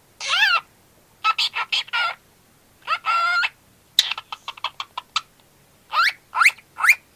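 A cockatiel calling in a string of separate calls: a rise-and-fall chirp, a run of short chirps, a wavering call, then after a sharp click about four seconds in a quick series of short chirps, and three rising whistles near the end.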